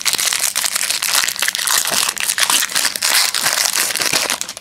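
Metallic foil wrapper of a 2006 Topps Bazooka baseball card pack crinkling and crackling steadily as hands grip, bend and work it open. The crackle dies away near the end.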